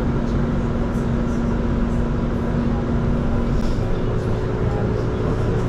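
Interior ride noise of an Irizar ie tram electric bus under way: a steady road and drive hum. A tone in the hum changes pitch about two-thirds of the way through.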